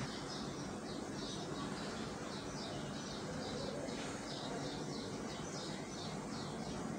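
Repeated short high chirps, about two a second, typical of a bird calling, over a steady low background noise.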